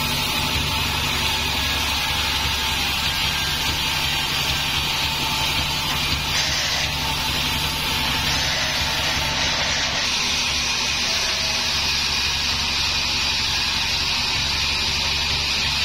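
Band sawmill running steadily, its narrow blade ripping lengthwise through a wooden plank. The sound is a continuous whirring cutting noise over the hum of the saw's drive.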